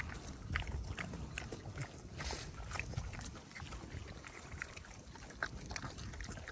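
Goats and pigs eating scattered greens in leaf litter close by: irregular chewing crunches and small clicks.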